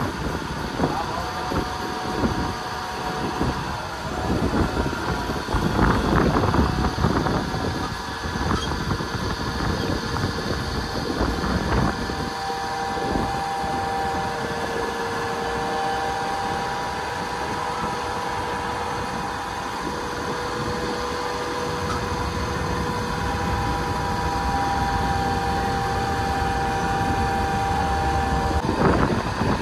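Mumbai suburban electric local train: a steady whine of several tones over a rumble, with spells of rattling and clattering; the whine cuts off suddenly near the end.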